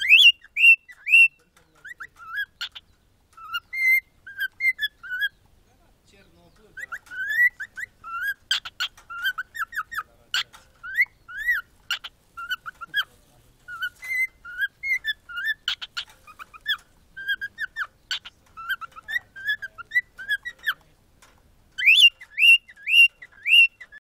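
Cockatiel whistling a string of short notes that slide up and down, in phrases with brief pauses between them, mixed with a few sharp chirps.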